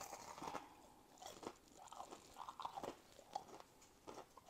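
Faint, irregular crunching of someone chewing a crunchy air-fried snack close to the microphone.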